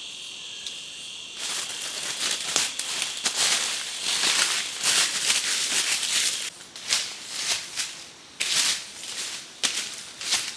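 Dry leaves and brush rustling and crackling irregularly, as they are disturbed. A high insect drone, like cicadas, cuts off about a second and a half in.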